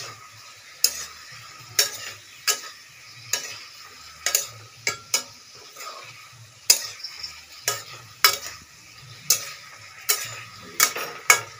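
Metal spatula scraping and clinking against a metal wok as spiced potato, cauliflower and tomato are stirred, with frying sizzling throughout. The strikes are irregular, roughly one or two a second.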